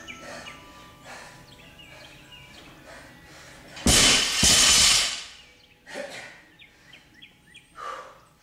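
A loaded barbell with weight plates dropped onto the gym floor: a loud crash about four seconds in, then a second strike as it bounces and settles within about a second.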